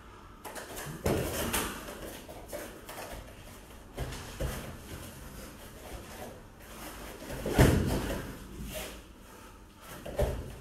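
Bare feet scuffing and bodies thudding onto foam puzzle mats as two no-gi grapplers go through a takedown and scramble on the floor, with the loudest thud a little past two-thirds of the way in.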